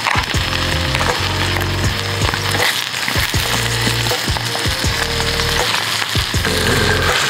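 Food sizzling in an aluminium foil tray over a camp stove while rice is stirred through it with chopsticks, with short scrapes and clicks of the chopsticks against the foil. Background music with a low bass line plays underneath.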